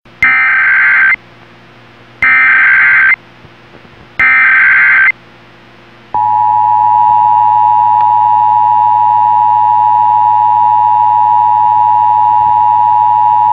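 Emergency Alert System tones broadcast over AM radio: three one-second bursts of the digital header code, a harsh data screech alternating between two pitches, about a second apart, then the steady two-tone EAS attention signal starting about six seconds in. A steady low hum and faint extra tones sit underneath, part of the garbled, noisy signal of this failed nationwide test broadcast.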